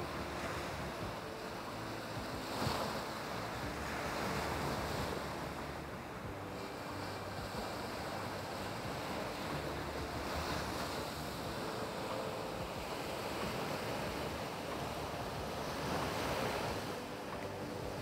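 Sea waves breaking against rocks and washing up a dark beach: a steady wash of surf that swells every few seconds as each wave comes in, loudest about three seconds in.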